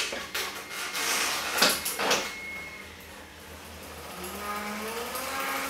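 A few sharp clicks and knocks as a rider gets onto a bike mounted on a Wahoo KICKR trainer. Then the KICKR's belt drive and flywheel start spinning up as pedalling begins, giving a whine that rises steadily in pitch over the last second and a half.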